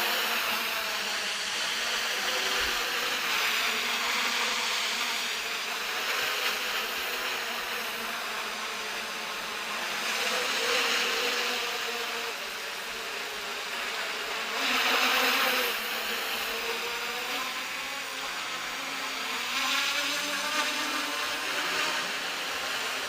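Omnicopter's eight propellers buzzing as it flies, the pitch wavering up and down as it manoeuvres. It gets louder in swells, most of all about two-thirds of the way through.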